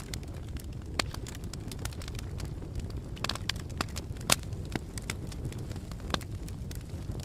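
Campfire burning, a steady low rumble of flames with irregular sharp crackles and pops of burning wood, a few louder snaps among them.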